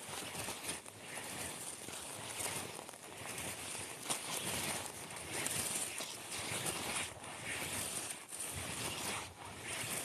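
Outdoor forest ambience: an even rustling hiss that swells and fades every second or two, with a few faint ticks.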